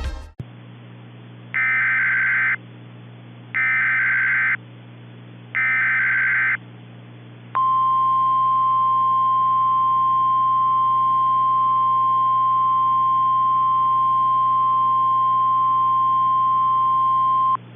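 Emergency Alert System SAME header: three one-second digital data bursts about two seconds apart over a low radio hum. Then a single steady NOAA Weather Radio alert tone, about 1050 Hz, held for about ten seconds, signalling that a warning message follows.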